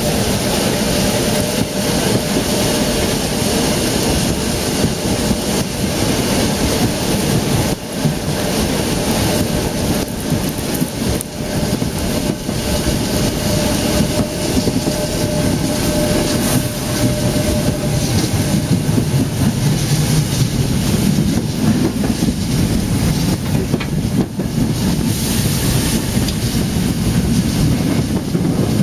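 Narrow-gauge steam train, hauled by locomotive 99 6101, running steadily along the track, heard from on board: a continuous rush of running noise with rail clatter. A faint steady tone runs through the first two-thirds and then fades out.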